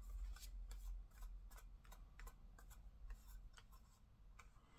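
Faint, scattered small clicks and taps of hard plastic model parts being handled as push-fit fixing pins are pressed into a plastic window piece.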